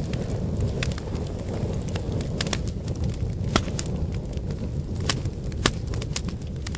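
Wood fire burning with a steady low rumble of flames and irregular sharp crackles and pops, two louder pops about three and a half and five and a half seconds in.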